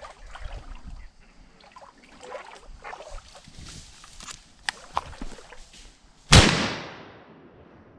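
Wading and splashing through shallow swamp water, then a single shotgun blast about six seconds in, its report fading out over about a second.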